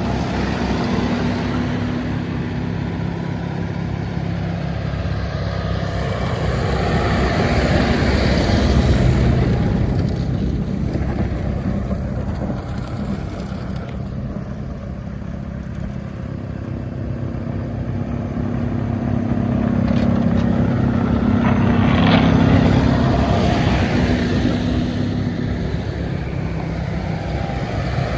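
Kubota M-series tractors' diesel engines running with their snowblowers going, a steady low hum under a rushing noise that swells louder about eight seconds in and again a little past twenty seconds.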